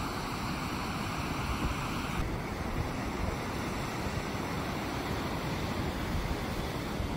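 Ocean surf breaking and washing up a sandy beach: a steady, even wash of noise.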